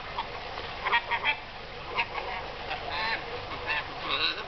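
Small pet parrots, a rainbow lorikeet and a lovebird, chattering: a string of short squawks and chirps, about a dozen, in quick irregular succession.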